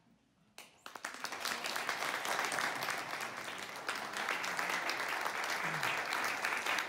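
Audience applauding: dense, steady clapping that starts about half a second in and quickly swells to full strength.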